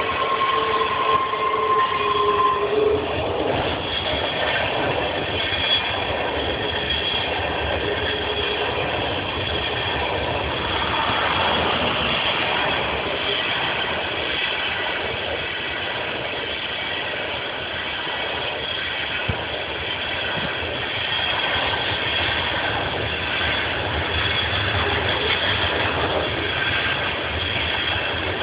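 NYS&W freight train rolling past a grade crossing, a steady rumble of wheels on rail throughout, with two steady high tones in the first few seconds.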